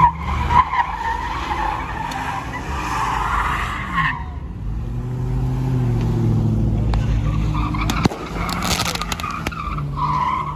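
Car tyres squealing as a car is driven hard on the pavement, with its engine revving up and down. The squeal breaks off about four seconds in and returns near the end, and there is a sharp crack about eight seconds in.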